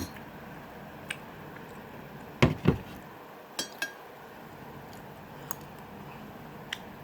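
Scattered light clinks and taps of a utensil against dishes, with two louder knocks in quick succession about two and a half seconds in.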